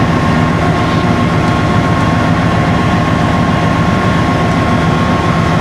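Steady low rumble of a moving Union Pacific diesel freight locomotive, mixed with the running noise of a car pacing it on a parallel road, with a steady thin whine above the rumble.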